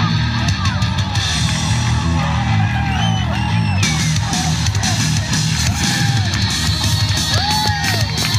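Loud rock entrance music with drums and electric guitar, played over a PA speaker as a wrestler's entrance theme.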